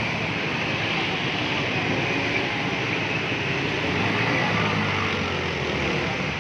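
Steady street traffic noise, chiefly motorcycle engines running as the bikes ride through floodwater on the road.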